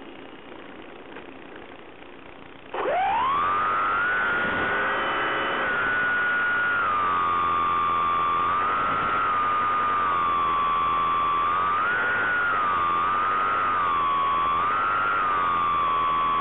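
Electric motor of a Bixler 3 RC foam plane, picked up by the onboard camera. After a few seconds of quieter airflow noise, the motor throttles up about three seconds in with a whine that sweeps quickly up in pitch. It then holds a steady high whine that rises and falls a little with the throttle.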